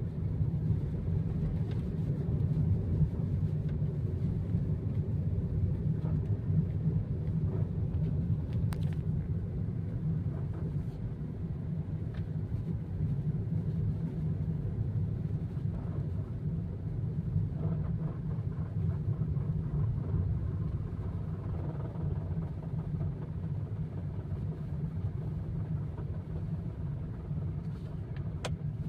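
Honda car engine running at low revs with a steady low rumble and a rattle whose cause the owner does not know.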